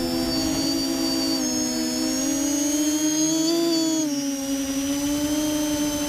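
Multirotor drone's electric motors and propellers whirring, heard from the onboard camera, with a high whine from the motors over a steady buzzing tone. The pitch creeps up briefly and then drops about four seconds in as the throttle is eased.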